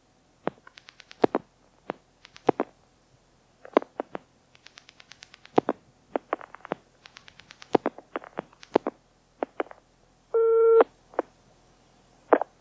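Clicks on a recorded landline telephone line, some single and some in quick runs, then one steady telephone tone of about half a second, a little before the end.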